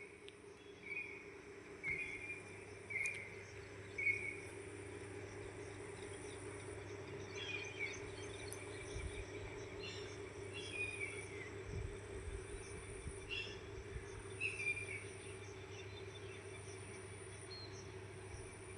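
Birds calling, a short note repeated about once a second for the first few seconds and then scattered chirps, over a faint steady insect buzz and a low hum.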